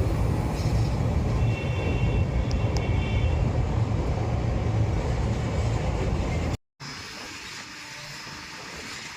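Train running with a heavy, steady low rumble. About six and a half seconds in the sound cuts off abruptly for a moment, and a much quieter steady noise follows.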